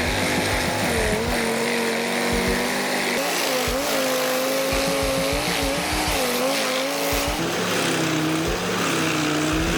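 Large wood chipper's engine running under heavy load, its pitch dipping and recovering several times as wood is fed through, over a steady noisy grinding of wood being chipped. About two-thirds of the way in the engine settles to a lower pitch.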